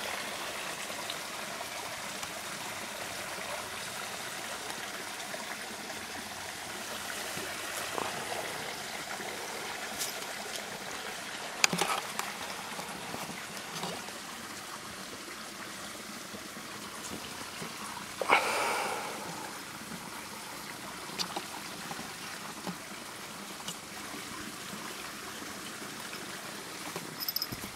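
Steady hissing background noise, broken by a few short taps and one brief, louder burst of noise about two-thirds of the way through.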